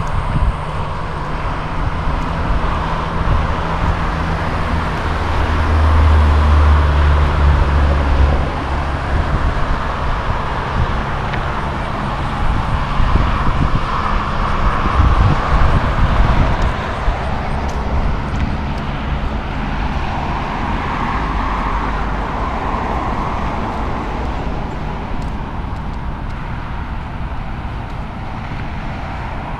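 Road traffic: cars passing on a road with a steady rush of tyre noise, and a heavier engine's low drone loudest about six to eight seconds in.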